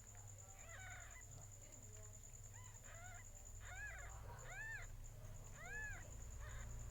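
Cat mewing in about five short calls, each rising and falling in pitch, the last ones clearer.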